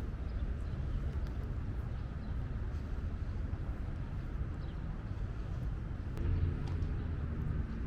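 Steady low outdoor rumble with a faint hiss above it and a few scattered faint ticks; no clear single source stands out.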